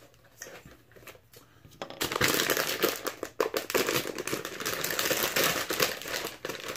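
A few faint clicks, then from about two seconds in, dense crinkling of a thin vacuum-sealed plastic bag being pulled and torn open.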